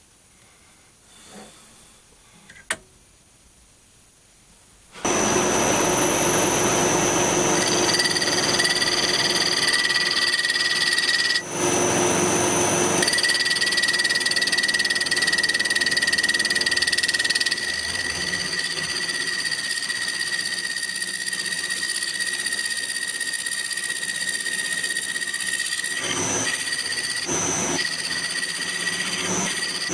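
A few light metal clicks as a boring bar is set in the lathe's toolpost, then about five seconds in the metal lathe starts and runs steadily with a gear whine while the boring bar cuts the bore of a cast iron backplate. The level steps down partway through and stays steady after.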